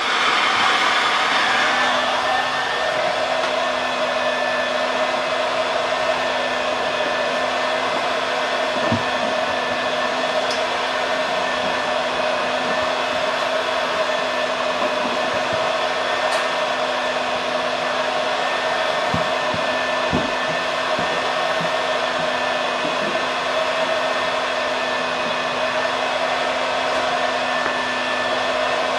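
Electric heat gun running steadily, a constant hum under an even rush of air, heating a plastic car bumper to soften it so a dent can be pushed out. A few faint knocks come through it.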